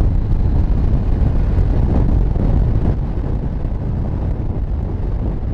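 Rushing wind buffeting the camera microphone at speed, over the running engine of a Yamaha MT-09 three-cylinder motorcycle; a little quieter from about halfway.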